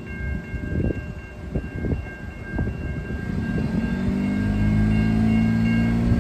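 Railroad crossing warning bell ringing steadily over low knocks and rumble. About halfway in, a low engine drone builds up and becomes the loudest sound.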